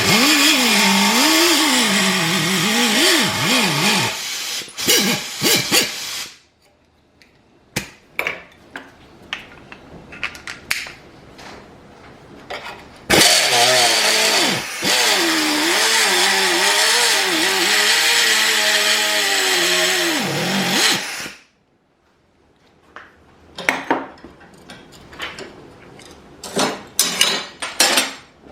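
Air cut-off tool running in two long bursts of several seconds each, its pitch wavering up and down as it cuts. Scattered clicks and knocks between and after the bursts.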